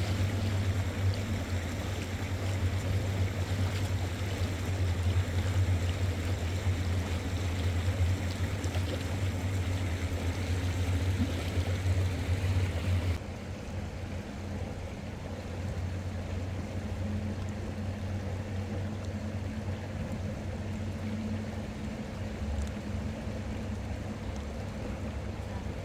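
Steady rushing of river water, with a strong low rumble; about halfway through it drops abruptly to a quieter, duller rush.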